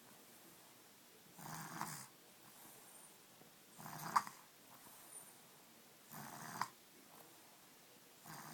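Snoring: four snores, each about half a second long and ending in a short sharp peak, coming about every two and a half seconds.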